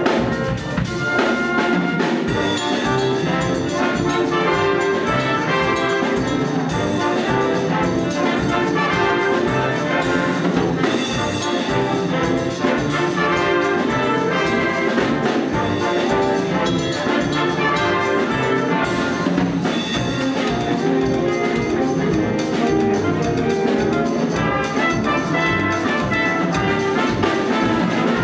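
Wind band of clarinets, saxophones, brass and drum kit playing a Cuban-style piece with a steady percussion beat. The low end drops out for a moment about a second in, then the full band comes back in.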